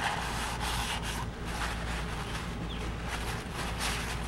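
A towel rubbing over the cartridge oil filter housing as it is wiped clean, in quick repeated strokes, about two or three a second.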